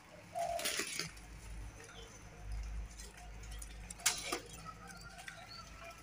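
Zebra doves (perkutut) cooing, with a short falling coo about half a second in and faint further calls later. A sharp click comes about four seconds in.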